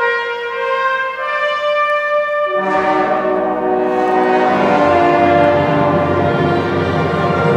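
Symphony orchestra playing sustained chords with the brass prominent; about two and a half seconds in, the low instruments come in and the sound grows fuller.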